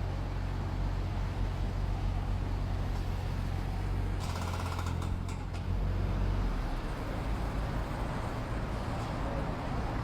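A heavy machine's engine runs steadily with a low rumble, and a short clatter of knocks comes about four to five seconds in.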